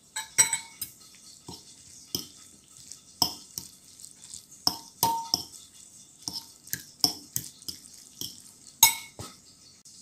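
Metal fork clinking and scraping against a ceramic bowl while mixing noodles with sauce: irregular sharp clinks, about two a second.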